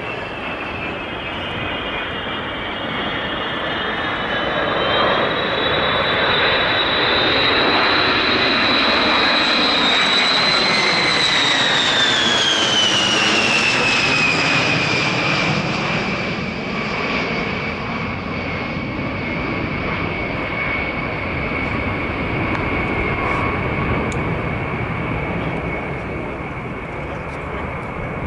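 B-52H Stratofortress bomber's eight turbofan engines as it flies low overhead: a loud jet rush with a high whine that builds over the first several seconds. About halfway through, the whine slides down in pitch as the bomber passes, then settles into a steadier, lower whine as it moves away.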